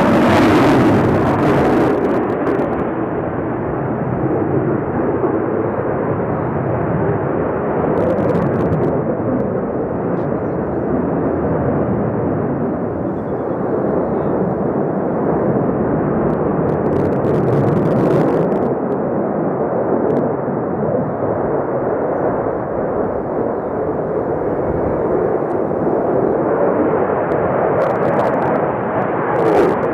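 Twin-engine Sukhoi Su-35 fighter jet in flight: its engines give a loud, steady jet noise that carries on without a break.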